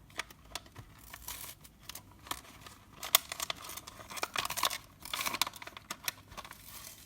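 A small model-kit box and its packaging being opened by hand: irregular crinkling, tearing and clicks, heaviest from about three seconds in.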